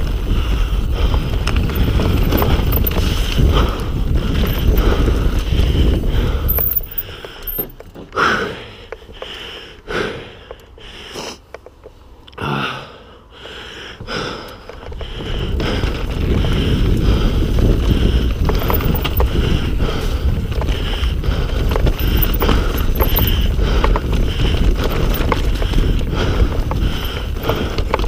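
Mountain bike riding down a rough trail: wind rushing over the microphone and the bike rattling over the ground. The noise drops off for several seconds around the middle, then picks up again.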